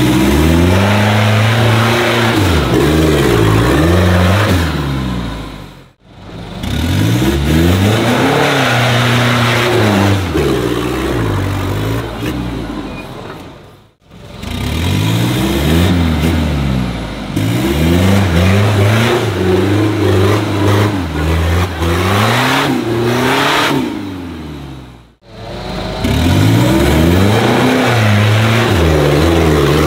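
Off-road 4x4's engine revving hard again and again, its pitch rising and falling with each burst of throttle as it works through mud, over a steady rush of noise. The sound drops out briefly three times where clips are joined.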